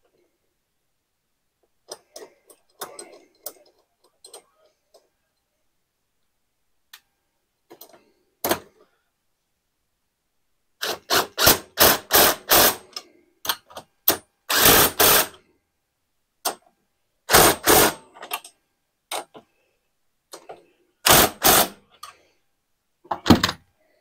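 Cordless power driver running in a series of short bursts as fasteners are driven back into the Honda EU3000is generator. The bursts start about halfway through, the loudest in the middle, and a few more follow near the end. Light clicks of parts and tools being handled come before them.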